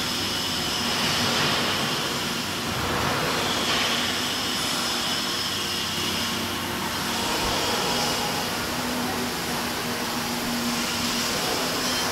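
Steady factory background noise: a mechanical drone with a low hum and a faint high whine running throughout.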